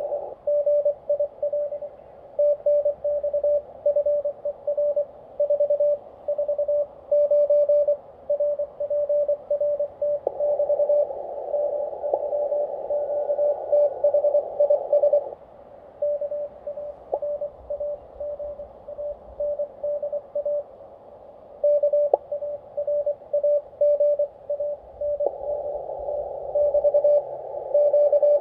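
Morse code (CW) from a Xiegu G90 HF transceiver: a single steady tone keyed on and off in dots and dashes. At times hiss from the band can be heard around it through the narrow CW filter.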